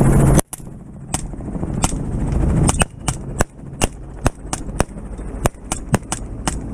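Rapid semi-automatic rifle fire from a 6.5 Creedmoor rifle shot out of a helicopter door: about fifteen sharp shots in six seconds, at uneven spacing. Behind them runs the helicopter's steady engine and rotor drone, which drops away sharply at the first shot and slowly comes back.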